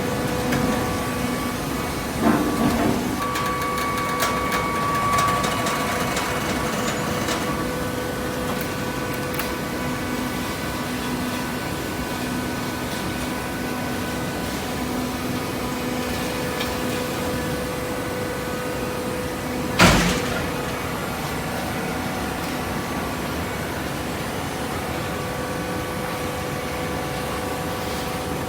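Hydraulic baler's power unit running with a steady hum, with a few clicks and knocks early on and one loud clank about twenty seconds in.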